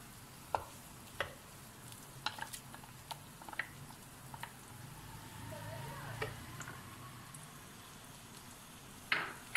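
Low sizzle of food frying in a karahi while chopped tomatoes go in and a wooden spatula knocks and scrapes against the pan and a glass bowl. The spatula makes a string of sharp clicks, with a louder knock near the end.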